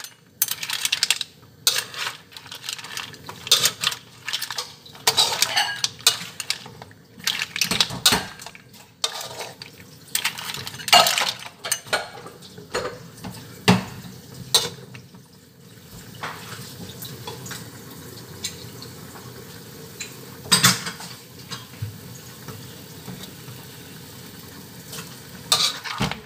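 A cooking utensil scraping and clanking against a pan as seafood and corn are stirred, over a light sizzle. The stirring stops about sixteen seconds in, leaving a steady sizzle with two more clanks near the end.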